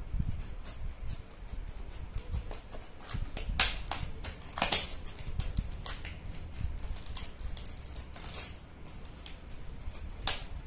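Scissors cutting through a stiff clear plastic blister pack: irregular snips and crackles of the plastic, with a few louder snaps.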